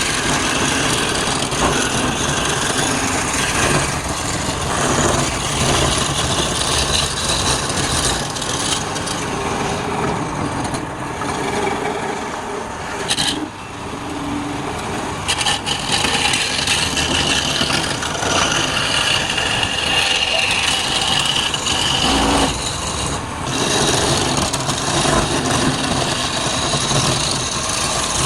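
Wood lathe running while a turning tool cuts the spinning wood: a continuous, uneven scraping hiss over the motor's running, easing off briefly about halfway through.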